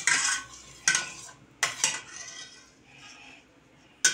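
Metal spoon scraping and clinking against the sides of a stainless steel pot while stirring tomato sauce as it cooks. The strokes come separately: one at the start, one about a second in, two close together just before two seconds, and another near the end.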